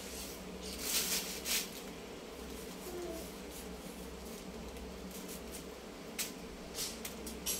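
Papaya skin being sliced off against a boti's curved iron blade: short scraping cuts, a couple about a second in and several more near the end.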